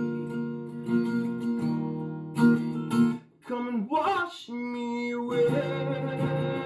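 A man singing to his own strummed acoustic guitar. The strumming breaks off about three seconds in under a wavering sung line, then resumes about five seconds in.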